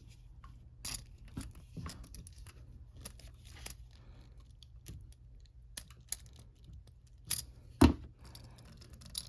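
Small plastic clicks, light scrapes and rattles from working apart the parts of an Ethernet connector by hand, with one louder knock near the end.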